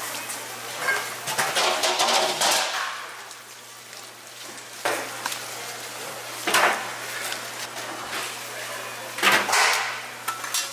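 Metal cooking tools scraping and knocking on a hotteok griddle in several short bursts: a longer run about one to two and a half seconds in, then single clatters near five and six and a half seconds, and another run near the end.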